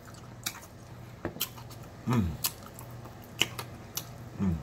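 Close-miked eating: a person chewing and biting into a piece of smothered chicken held in the fingers, with scattered wet mouth clicks and smacks. Twice a short low hum falls in pitch.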